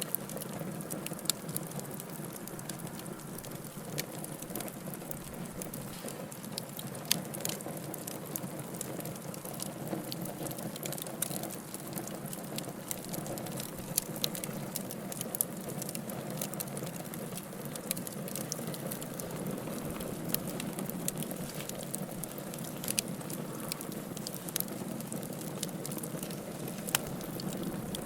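Campfire burning: a steady low rush of flames with irregular crackling and sharp pops from the burning wood.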